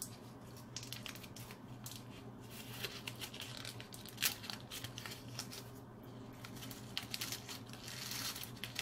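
A pleated paper baking cup crinkling and tearing as it is peeled off a homemade chocolate peanut butter cup, in a run of small, irregular crackles.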